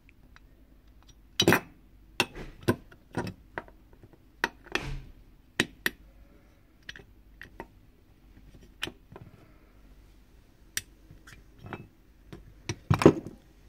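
A screwdriver working at the steel sleeve bushing of a fan motor's metal end shield: an irregular series of sharp metallic clicks, taps and clinks, loudest about a second and a half in and again near the end.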